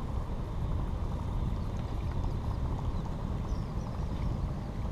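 Wind rumbling steadily on an action camera's microphone while a baitcasting reel is cranked, with faint ticking over the rumble.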